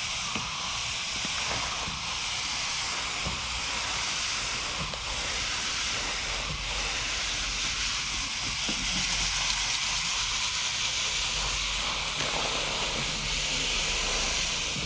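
Garden hose spraying water onto an air conditioner's condenser coils, a steady hiss wetting the fins to loosen heavy dirt before foaming coil cleaner goes on.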